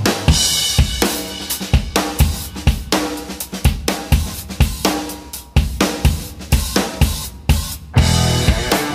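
Background rock music with a steady drum-kit beat; the sound gets fuller about eight seconds in.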